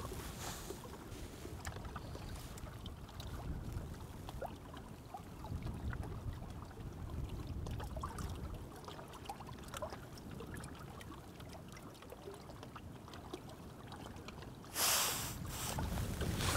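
Small waves lapping and trickling against a stony shore, with a low wind rumble on the microphone. Near the end comes a brief loud rustle.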